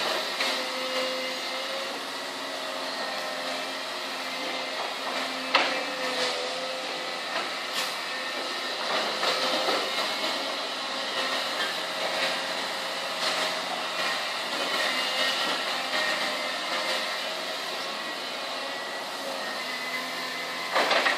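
Diesel engine of a Hyundai Robex 300LC-7 excavator running steadily, with a few sharp metal clanks from the machine, the loudest about five and a half seconds in and a quick cluster near the end.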